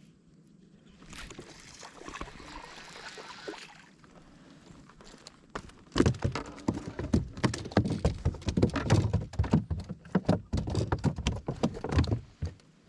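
A small hooked largemouth bass thrashing and splashing as it is landed: a soft wash of noise early, then from about halfway a long run of sharp splashes and knocks that stops shortly before the end.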